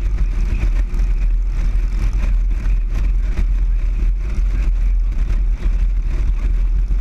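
Motorcycle riding steadily at road speed, heard from a camera mounted on the bike: a heavy, constant rumble of wind buffeting the microphone over engine and road noise.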